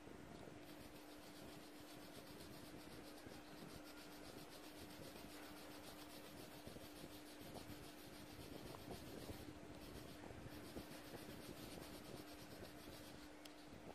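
Pen tip scratching on paper in quick back-and-forth strokes as a black stripe is colored in, with a couple of brief pauses.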